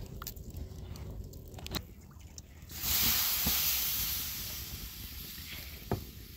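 Soft wet squelching as a hand works runny oak-flour dough in a metal bowl, then, about three seconds in, a sudden loud hiss as the wet dough meets a hot griddle over a wood fire, the sizzle slowly fading.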